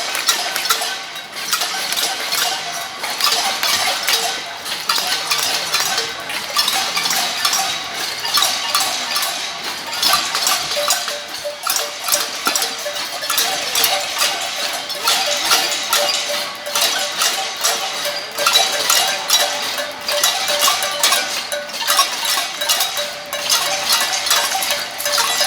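Many people banging metal pots and pans at once in a cacerolada protest: a dense, unbroken clatter of ringing metallic strikes.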